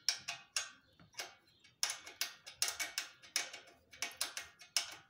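Sharp metallic clicks, about two or three a second, as a hex key is turned in short strokes and refitted to screw in the bolt of a steel center kickstand on a bicycle frame.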